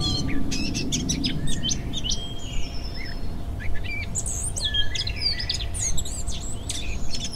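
Small birds chirping and twittering: many quick, overlapping calls and a few longer whistled notes, over a steady low rumble.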